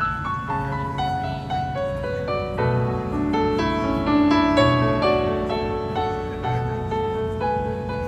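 Live band playing a slow ballad, led by a piano-toned keyboard solo of ringing, fading notes over a low bass line.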